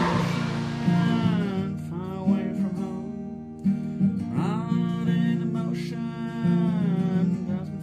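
Music with acoustic guitar; the wash of surf fades out in the first second.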